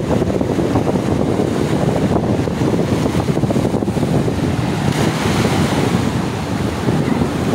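Sea surf breaking and washing up the sand, with wind buffeting the microphone, loud and steady.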